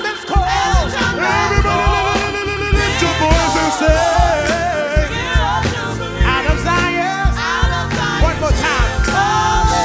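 A gospel praise team singing with backing music: several voices in sliding runs and ad-libs over a steady beat.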